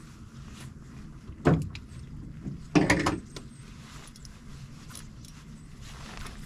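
Two knocks against a drift boat, about a second and a half apart. The second is a short cluster of knocks and the louder of the two. They sit over a steady low background noise.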